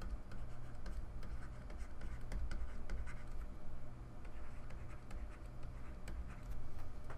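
Stylus writing on a tablet: a run of short scratching strokes and taps as a word is handwritten, over a steady low hum.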